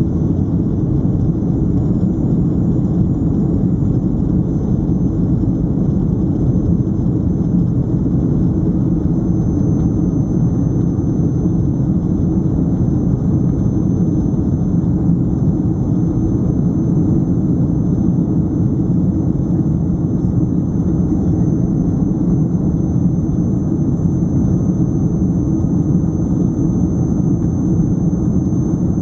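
Steady cabin noise of a Boeing 767-300ER in the climb after takeoff: jet engines and rushing air heard inside the passenger cabin, even and unchanging, with a faint steady high whine above it.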